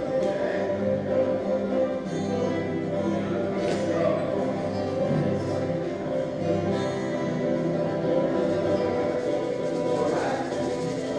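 A group of acoustic guitars and other string instruments strumming and playing a folk song together.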